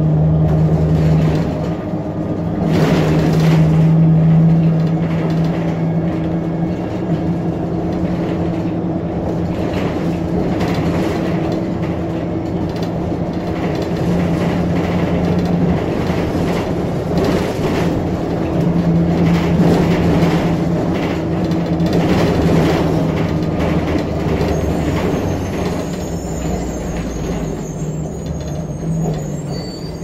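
Interior ride noise of a 2007 Blue Bird Xcel 102 CNG transit bus under way: its John Deere 8.1G natural-gas engine and Allison 2000 transmission running with a steady hum, over road noise and cabin rattles. It grows quieter near the end.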